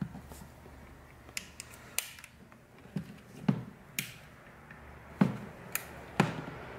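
Thin metal pry tool clicking and knocking against the housing of a Rode NT-USB Mini microphone as it is worked into a seam, with the mic body shifting in the hands. Irregular sharp clicks and duller knocks, the loudest a little past the middle and near the end.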